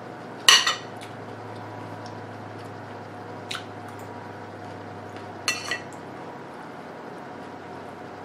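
Metal fork clinking against a ceramic dinner plate three times a few seconds apart, the first the loudest, over a steady low hum.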